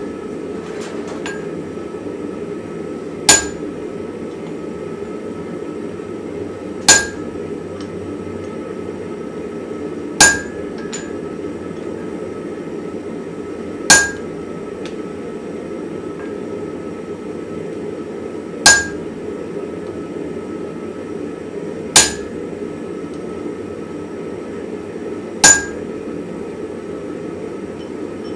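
Seven single hammer blows on steel, struck slowly a few seconds apart, each with a short metallic ring, over a steady low rushing noise.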